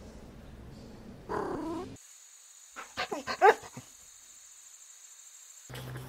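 Short, high yipping calls from a small pet animal: one call, then after a cut four or five quick calls in a cluster, the last the loudest.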